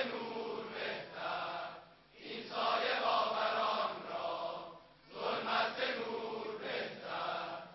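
A crowd of men chanting a Shia mourning noha together. It comes in long sung phrases of two to three seconds, with short breaks about two and five seconds in.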